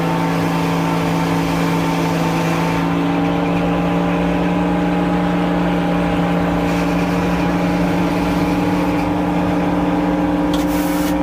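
Engine powering a Frick sawmill, running at a steady speed. A high hiss fades out about three seconds in, and a short hiss comes near the end.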